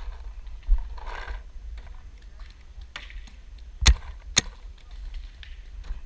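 Paintball marker firing two shots about half a second apart, each a sharp pop, over a low wind rumble on the microphone.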